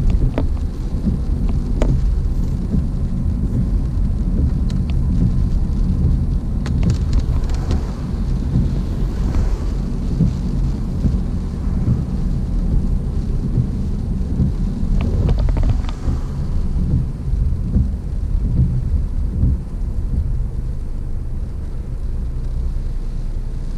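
Heavy rain on a moving car with a dense, steady low road rumble, and a few sharp ticks about 2 s, 7 s and 15 s in.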